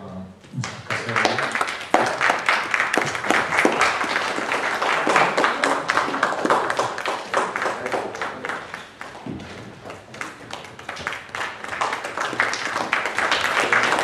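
Audience applauding, starting about a second in, easing off somewhat around ten seconds in and swelling again near the end.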